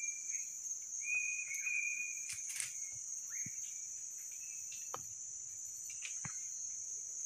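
Steady high-pitched chorus of forest insects such as crickets or cicadas. A few short whistle-like notes sound in the first two seconds, and several sharp clicks come and go.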